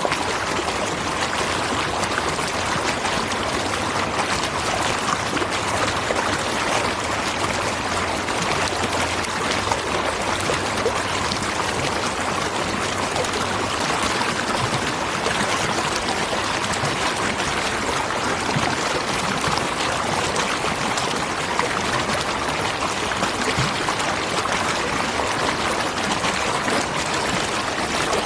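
Waterfall: a steady, even rush of falling and splashing water that does not change.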